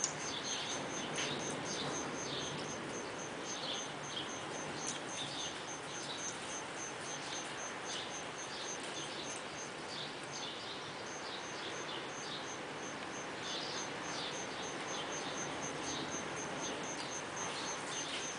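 Steady background hiss with birds chirping intermittently, and a high-pitched pulsing at about five pulses a second that stops briefly in the middle.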